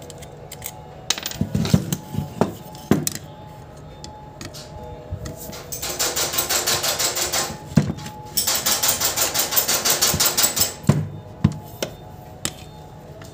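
Hand disassembly of a Makita 4-inch angle grinder: a screwdriver and loose metal and plastic grinder parts give sharp clicks and a few knocks. About six seconds in come two runs of fast, even clicking rattle, each about two seconds long, with faint background music underneath.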